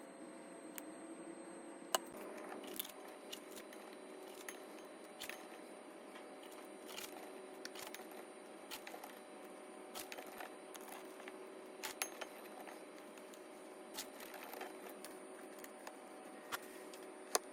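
Light clinks and taps, scattered irregularly, like utensils against dishes during kitchen prep, over a steady low hum.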